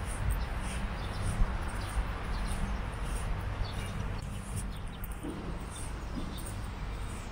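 Outdoor city ambience heard while walking: a steady low rumble with short high ticks scattered irregularly throughout.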